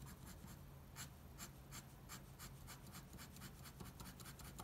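Ink pen scratching across paper in quick, short hatching strokes, about four or five a second, laying down a layer of shading. Faint.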